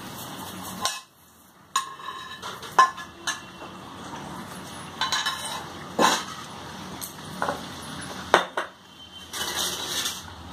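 Kitchen utensils clinking and knocking as fried cauliflower-stalk fingers are served from the frying pan into a small steel bowl on a steel tray: a string of separate sharp clinks, with a brief lull about a second in.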